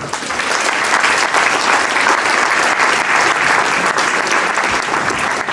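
Audience applauding: dense, even clapping from many hands.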